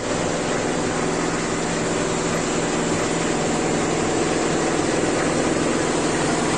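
Compressor motor running steadily: a continuous hum with a hiss over it.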